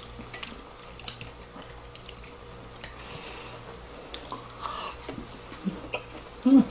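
Quiet eating at a table: scattered light clicks of metal chopsticks against ceramic bowls and dishes, over a steady low hum. A short voiced sound breaks in near the end.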